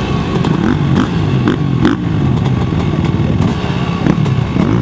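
Several motocross bike engines revving at once, their pitch rising and falling and overlapping, with a few short sharp clacks.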